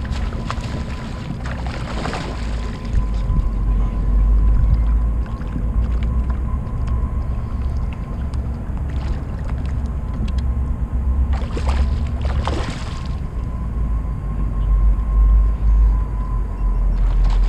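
Kayak under way on a river: a steady low rumble of water and wind against the hull with a faint thin steady whine, and a couple of brief hissing swishes, the longest about two-thirds of the way through.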